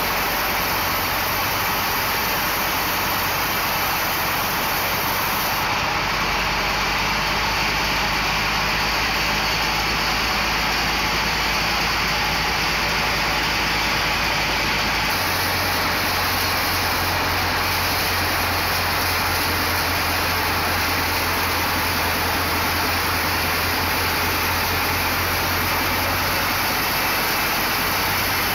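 Large sawmill band saw running and cutting through a teak log: a steady, loud whir of blade and motor over a low hum that shifts twice.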